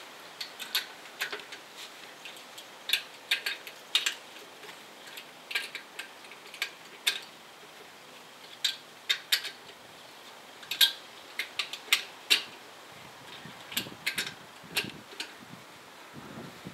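Irregular sharp metallic clicks and clinks, singly and in small clusters, from tapered wheel nuts and a hand-held socket wrench being worked on the studs while a hub-centric wheel spacer is tightened down onto the hub.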